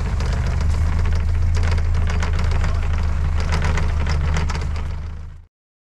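Vehicle engine running steadily while towing, under the clatter and rattle of a wooden trailer bouncing over grass; it fades and cuts off about five and a half seconds in.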